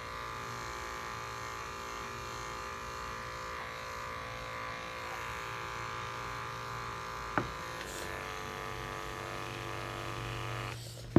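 Electric pet clippers buzzing steadily as they shave a Persian cat's long coat. There is a single short click about seven seconds in, and the hum stops near the end.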